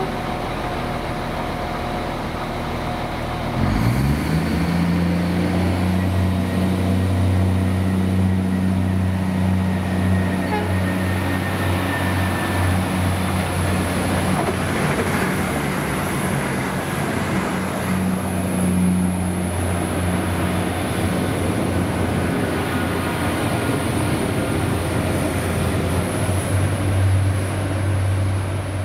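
Irish Rail 22000 Class railcar's underfloor diesel engines open up sharply about four seconds in, then run with a steady low drone as the train pulls away from the platform. A second train passing on the next line adds a rushing noise midway.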